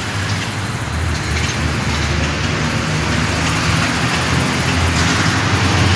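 Steady street traffic noise: a motor vehicle's low engine hum with road hiss, growing a little louder.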